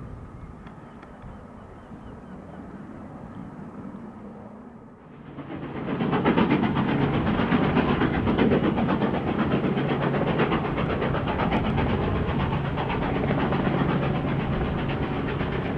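GWR King class four-cylinder 4-6-0 steam locomotive 6024 King Edward I hauling a train. For the first five seconds it is faint and distant. Then the sound jumps to loud, close exhaust beats in quick succession as the engine works up a climb, with a steady drone from a helicopter overhead underneath.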